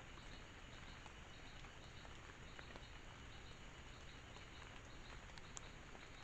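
Faint insect chirping at night, a short high chirp repeated at an even pace over a steady hiss, with a few faint ticks and one brief sharp click near the end.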